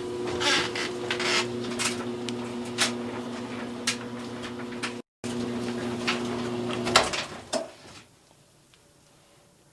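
Clothes dryer running: a steady motor hum with irregular knocks and clicks from the tumbling drum. The hum stops about seven seconds in after a few louder clicks, and then there is near silence.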